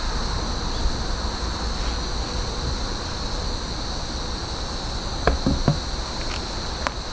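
Steady high-pitched drone of insects, with a low rumble underneath and a few short clicks about five seconds in and again near the end.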